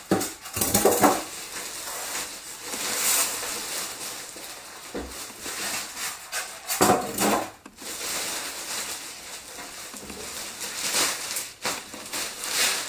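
Styrofoam packing blocks being pulled off a computer case and its plastic wrapping bag crinkling, in irregular rustles and scrapes with a few louder ones about one, three, seven and eleven seconds in.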